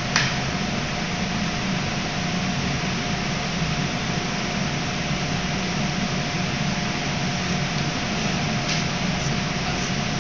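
Steady air-handling noise of kitchen ventilation, with a faint steady hum running through it. A single sharp click sounds just after the start.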